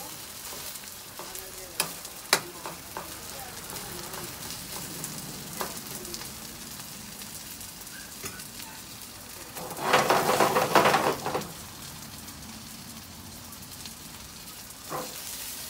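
Seafood pajeon sizzling as it fries in oil in a nonstick frying pan over a gas burner, with a few sharp clicks of a metal spatula against the pan in the first few seconds. About ten seconds in, a louder rushing noise lasts a second or so.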